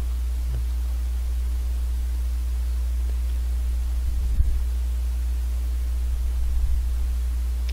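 Steady low hum with a faint hiss, unchanging throughout, broken by a few faint, soft low thumps, the clearest about four and a half seconds in.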